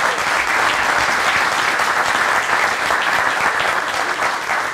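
An audience applauding steadily, many people clapping at once.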